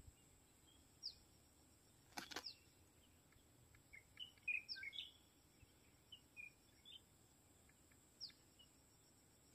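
Faint scattered bird chirps: a few short downward-sweeping calls and a brief twittering cluster about four to five seconds in. There is one soft knock about two seconds in, over a faint steady high-pitched whine.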